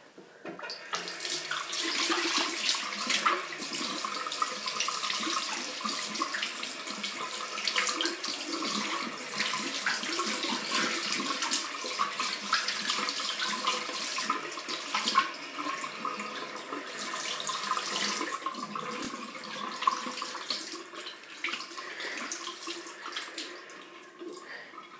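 Bathroom sink tap running, with hands being washed under the stream; the water starts just after the beginning and runs on, dropping away near the end.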